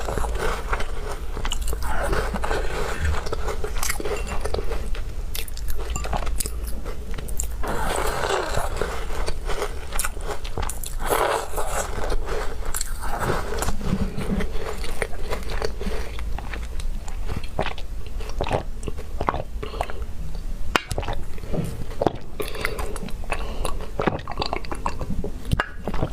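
A person biting and chewing walnut cookies with milk: continuous crunching with many small clicks, in waves every few seconds.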